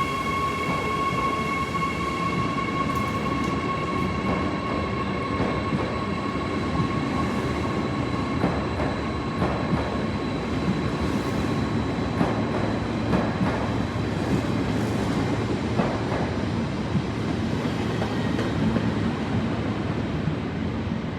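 Deutsche Bahn IC2 double-deck electric train pulling out of the station: a steady high whine fades away over the first several seconds, leaving a continuous rumble with scattered wheel clicks as the carriages roll past.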